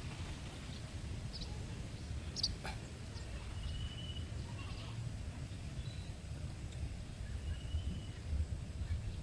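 A few short, high bird calls and chirps, thin whistles about four and eight seconds in, over a steady low rumble.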